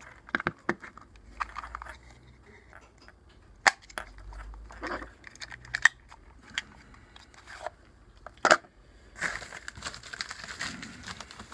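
Scattered clicks and knocks of small hardware being handled, then, from about nine seconds in, a plastic shipping bag crinkling.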